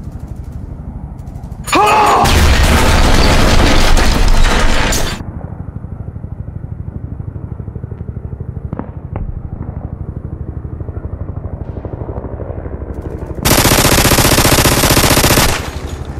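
Two long bursts of automatic machine-gun fire, the first about two seconds in lasting some three seconds and the second near the end lasting about two, over a steady low background rumble.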